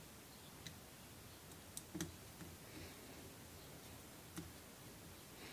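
A few faint, sharp clicks of a small screwdriver working in an air rifle's metal trigger unit, the sharpest about two seconds in.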